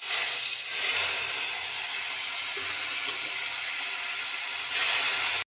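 Loud, steady hissing sizzle of hot mustard-oil tempering with garlic, cumin and fenugreek seeds in a steel kadhai, starting and stopping abruptly.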